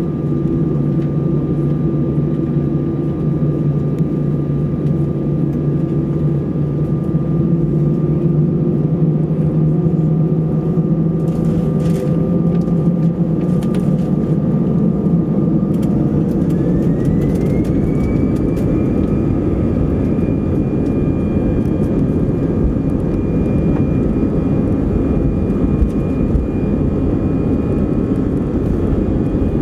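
Airbus A320 jet engines heard from inside the cabin: a steady whine at first, then about halfway through the whine rises in pitch over a couple of seconds and holds at the higher pitch as the engines spool up, with a growing rush of noise underneath. This is typical of thrust being set for the takeoff roll.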